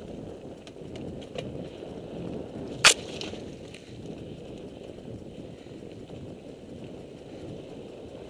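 Mountain bike riding over a rough dirt track: steady tyre and rolling noise with small rattles and clicks, and one sharp, loud knock about three seconds in.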